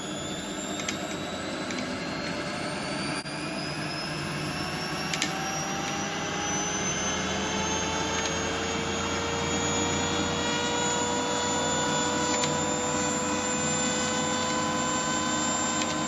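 Motor spinning a disc fitted with neodymium magnets, run up to full speed: a whine whose pitch keeps creeping up and then levels off about halfway through, with a few light ticks.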